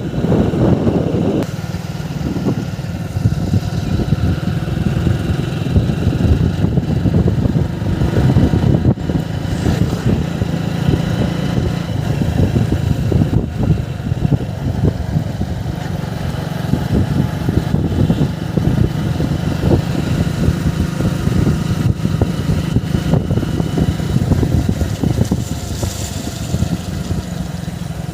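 Steady low mechanical rumble, like a heavy vehicle or engine running, with a scatter of faint clicks over it.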